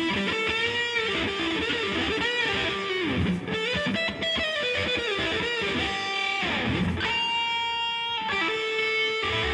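Music: a guitar, most likely electric, playing a melody full of bent and sliding notes.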